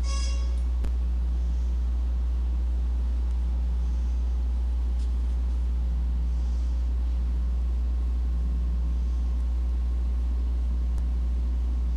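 Steady low electrical-sounding hum throughout, with a brief electronic tone right at the start: the buzz-wire game's alarm signalling that the wand has touched the copper rod.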